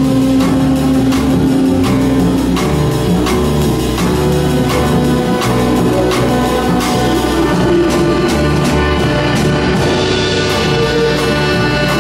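Improvising jazz-leaning ensemble of piano, electric bass, saxophones, trumpet, flute, drum kit and double basses playing dense, loud music: many quick drum and cymbal strikes under held horn and bass notes. A cluster of high held tones comes in about ten seconds in.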